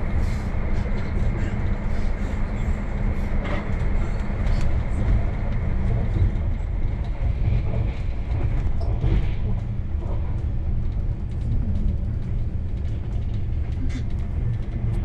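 Passenger train running at speed, heard from inside the carriage: a steady low rumble of the wheels on the rails with running noise over it.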